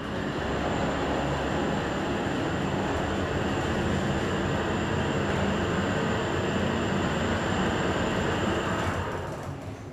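ThyssenKrupp TIME machine-room-less traction elevator heard from inside the cab as it travels upward: a steady rushing ride noise with a faint high-pitched whine. It fades near the end as the car slows.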